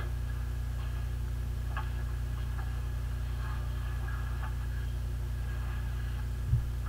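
Steady low electrical hum picked up by a laptop microphone, with a few faint ticks and one brief low thump near the end.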